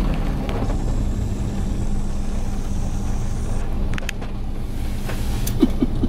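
Steady low rumble and constant hum inside a car's cabin, typical of the car idling while it sits out a storm, with a few light ticks about four seconds in.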